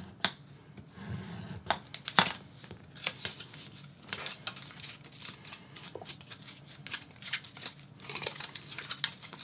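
Thin photo card being scored along a plastic set square and then folded by hand: paper rustling and crinkling with scattered sharp taps and clicks of the tool and set square on the cutting mat, the loudest about two seconds in.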